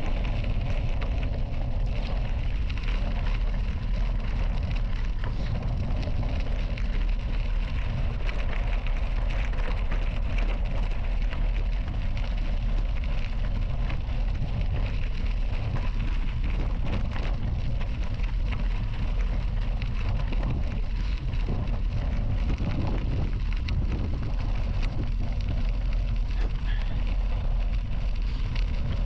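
Bicycle tyres rolling over a gravel path, with a constant crunching crackle of small stones, and wind rumbling on the microphone from the riding speed.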